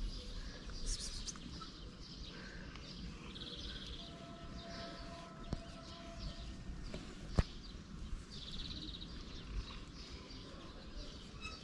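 Steady outdoor background noise with birds chirping now and then in short, rapid trills, and a single sharp click about seven seconds in.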